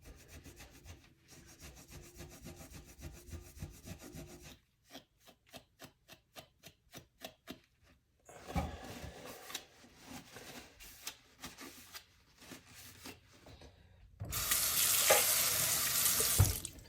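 Sponge loaded with Bar Keepers Friend powder, barely wet, scrubbing a steel knife blade with a gritty rubbing sound to lift a stubborn burn mark. In the middle it goes in quick even strokes, about three a second. Near the end comes a couple of seconds of louder steady rushing.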